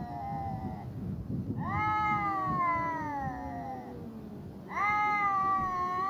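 Stray cats yowling at each other in a standoff that threatens a fight: long drawn-out howls that waver and slide downward in pitch. One call ends about a second in, another rises and falls from about two seconds in, and a third starts near five seconds.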